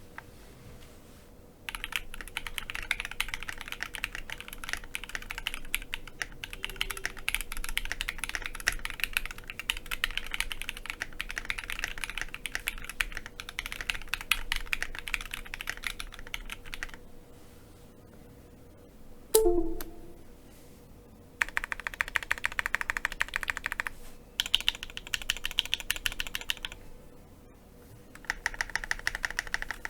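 Typing test on a mechanical keyboard fitted with Akko Rose Red linear switches and a PE foam mod: long runs of fast key clacks broken by short pauses, with a sound the reviewer calls a nice deep sound with minimal to no spring ping. A single loud knock comes near the middle, followed by a few shorter typing bursts, each with a slightly different sound.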